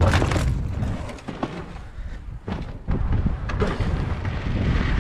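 Wind buffeting the microphone as mountain bikes roll over a dirt track, with a few sharp knocks and rattles. It dips for about a second midway, then comes back loud.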